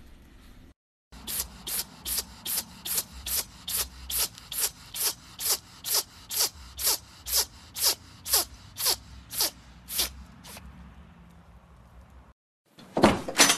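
A cat giving a long, even run of short, breathy calls, about two a second, that stops a few seconds before the end.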